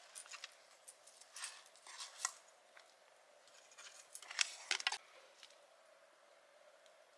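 Light clicks and scrapes of a metal utensil against cookware: several short ones in the first couple of seconds, then a quicker cluster about four to five seconds in, as fried cod tongues are taken out of the pan.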